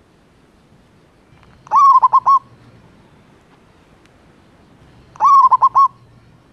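Zebra dove (perkutut) cooing twice, about three and a half seconds apart: each call is a held note followed by three quick short notes.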